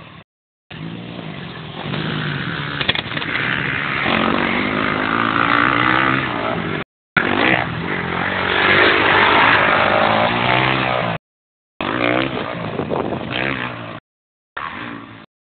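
Motocross bike engines revving up and down on the track, getting louder over the first few seconds. The recording cuts out completely several times for a fraction of a second.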